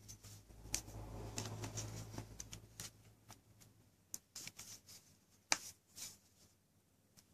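Faint handling noise of a smartphone, a tablet and a cardboard box being lifted and set down: a rubbing rustle in the first couple of seconds, then scattered light taps and clicks, the sharpest about five and a half seconds in.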